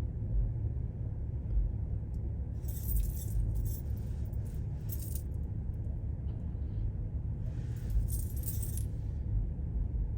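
Steady low road and engine rumble heard from inside a moving car, with light metallic jingling rattles three times, about two and a half, five and eight seconds in.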